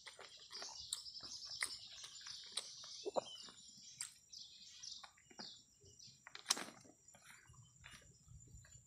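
Birds chirping, with faint clicks and smacks of eating by hand, fingers working rice on paper wrapping and lips smacking while chewing. The sharpest click comes about six and a half seconds in.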